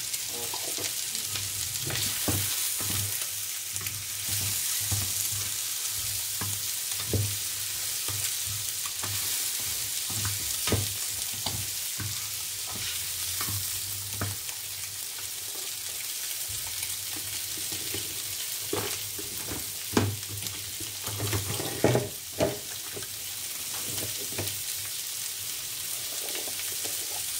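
Onions, blanched almonds and boiled eggs sizzling in a non-stick frying pan, stirred with a wooden spatula that knocks against the pan now and then, with a few louder knocks about twenty seconds in. A low steady hum runs underneath.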